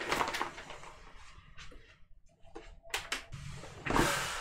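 A book being fetched and handled: scattered light knocks and clicks, with a louder rustle of paper near the end.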